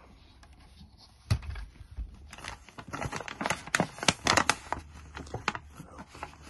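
Small hard parts being handled close up: a single sharp click a little over a second in, then a run of quick clicks and rustling that tails off near the end.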